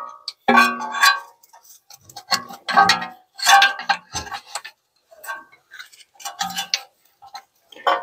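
Irregular plastic clicks and rattles of a brake pad wear sensor wire being handled and pressed into its retaining clips, in short clusters with brief pauses between them.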